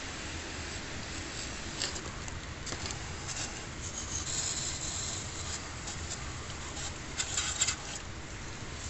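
Aerosol can of brake cleaner spraying onto an engine's oil filter housing in several short hissing bursts, the longest about four seconds in, over a low steady rumble.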